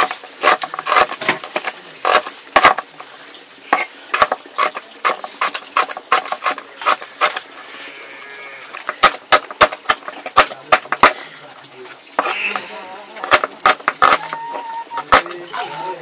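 Irregular sharp knocks and clatter, with water buffalo lowing in the second half.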